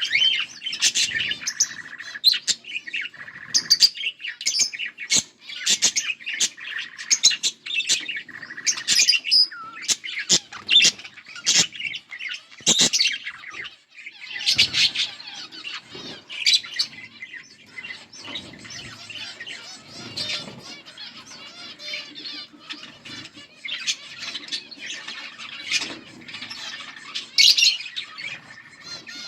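A pair of budgerigars chattering: rapid chirps, warbles and sharp squawks.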